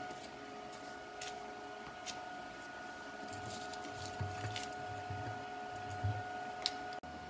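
A few light metallic clicks and taps, with dull low bumps, as a steel flat-bar lever on a home foundry's lid-lift linkage is moved by hand about its bolted pivot, over a steady hum.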